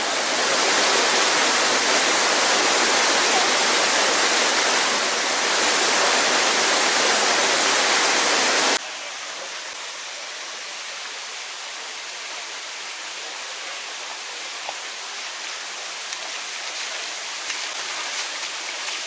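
Rushing water of the Dzhur-Dzhur waterfall, a loud, steady rush. About nine seconds in it drops suddenly to a quieter, even rush of water.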